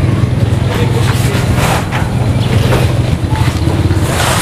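A small delivery truck's engine idling steadily, with scrapes of cardboard parcels being shifted inside its cargo box about a second and a half in and again near the end.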